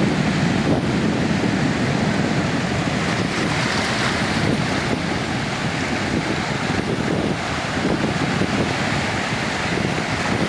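Sea waves breaking and washing on a sandy beach, a steady rushing surf, with wind buffeting the microphone.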